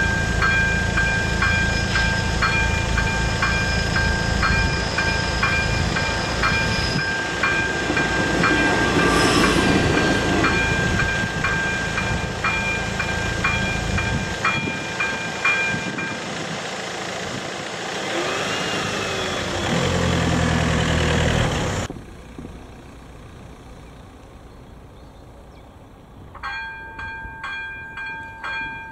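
Railway crossing warning bell (AŽD ZV02 electronic bell) ringing at a regular beat over a low engine rumble; it stops about sixteen seconds in. A louder rumble with a pitched tone comes and goes, the sound drops away sharply, and the bell starts ringing again near the end.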